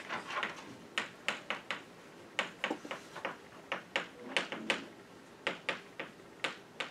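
Chalk writing on a blackboard: an irregular series of short, sharp taps and scratches as the chalk strikes and moves across the board.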